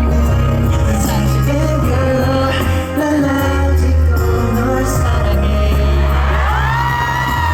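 Live pop/R&B song with a heavy, pulsing bass line and a sung lead vocal; near the end a voice slides up into a long held note.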